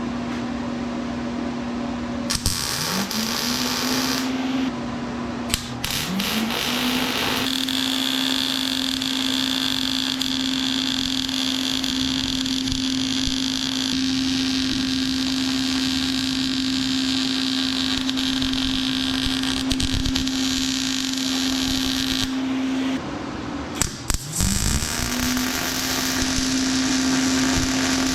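A steady motor hum that drops away and spins back up three times, with about fifteen seconds of loud, harsh hissing and crackling in the middle, from metalworking in a welding shop.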